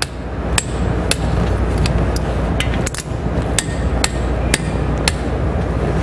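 Torque wrench working on a disc-brake caliper bolt: a run of sharp metallic clicks about twice a second over a steady low hum.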